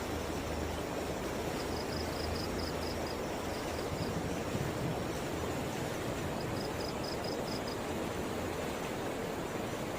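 Steady rushing of river water. Runs of rapid high chirping come in twice, about two seconds in and about seven seconds in.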